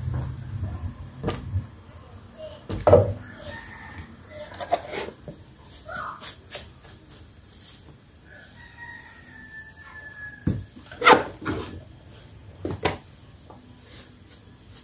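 Scattered knocks and clicks of kitchen handling, a few of them sharp, with a faint drawn-out call in the background about two-thirds of the way through.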